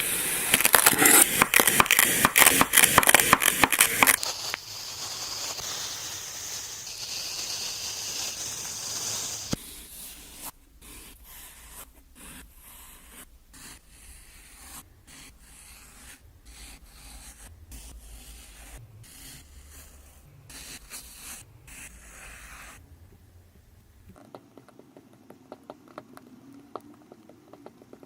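Kinetic sand being cut and scraped. There is a loud dense crunching for the first four seconds, then quieter rubbing, then scattered soft crackles and clicks.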